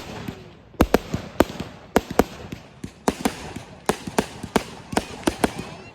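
Fireworks going off: an irregular string of sharp bangs and pops, a few every second.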